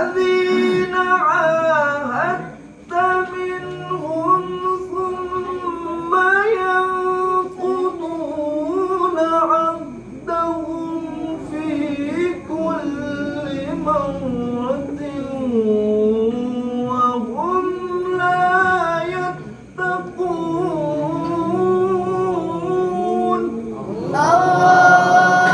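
A solo male voice reciting the Quran (tilawah) in maqam Nahawand, high-pitched and melodic, with long held, ornamented notes and a few short pauses for breath. A loud, rising phrase comes near the end.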